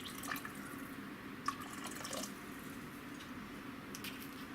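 White wine poured into a pot of soup broth: a faint trickle and drips, with a few small clicks.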